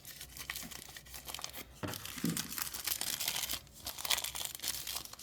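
Crinkling and tearing of small wrappers as tiny miniature kit parts are unwrapped by hand, a steady run of irregular crackles.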